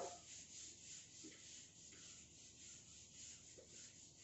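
Faint, repeated rubbing of a handheld duster wiping marker writing off a whiteboard.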